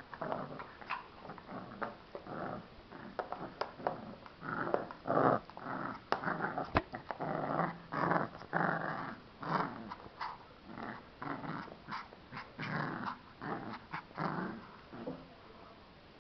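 Cavalier King Charles spaniel puppy growling in play as it bites and tugs at a toy, a long run of short growls with a few sharp clicks among them.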